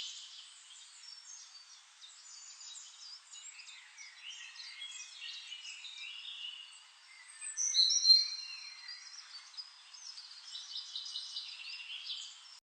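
Several small birds chirping and singing, with short high calls overlapping one another and a louder run of clear whistled notes about eight seconds in.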